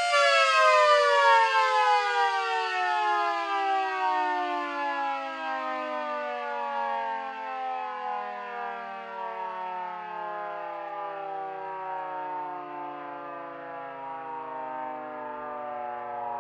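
Miniature model of a Federal Signal Thunderbolt 3T22 warning siren winding down. Its chord of several tones glides steadily lower in pitch and grows quieter as the rotor slows.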